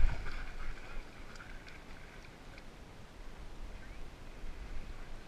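Water sloshing around a swimming dog as it paddles, picked up by a camera on its back, louder in the first second and then quieter over a steady low rumble.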